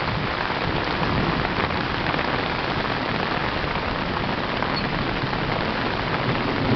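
Heavy rain falling steadily on the road and lawn, mixed with storm water rushing along a flooded street gutter.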